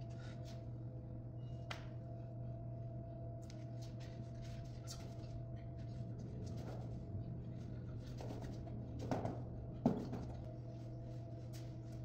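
A steady low hum with a few fixed tones, like the mains or ventilation hum of a room, with scattered light knocks and two louder thumps about nine and ten seconds in.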